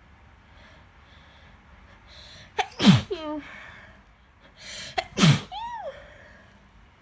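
A young woman sneezes twice, about two and a half seconds apart. Each sneeze starts with a quick breath drawn in, then a sharp explosive burst, and ends in a voiced tail falling in pitch. She takes the sneezes for a cold coming on.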